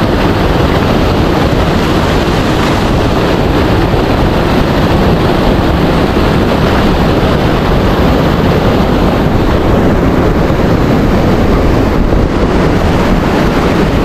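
Wind buffeting the microphone: a steady, loud rushing noise with a heavy low rumble.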